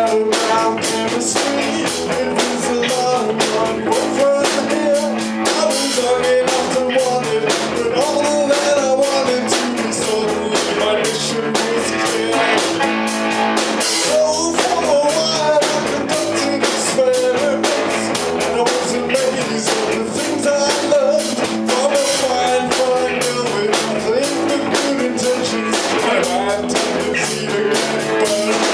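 Live rock band playing at an even loudness: electric guitar, electric bass and drum kit.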